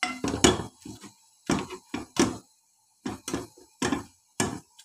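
Wire potato masher pressed repeatedly into boiled turnips, knocking against the bottom and sides of a metal pot. About a dozen sharp knocks come two or three a second in uneven runs.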